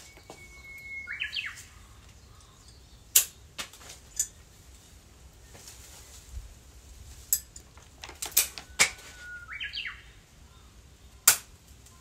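A Japanese bush warbler (uguisu) sings its 'hoo-hokekyo' song twice, about a second in and near the end. Each song is one long held whistle followed by a quick rising flourish. Between the songs come several sharp snips, the loudest sounds, as branch stems are cut with florist's shears.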